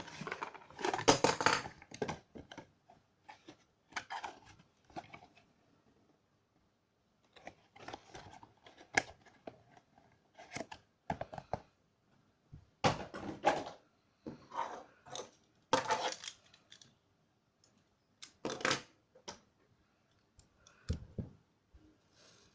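Packaging and small hard plastic toy parts being handled: irregular bursts of rustling, tearing and clicking, with short pauses between them.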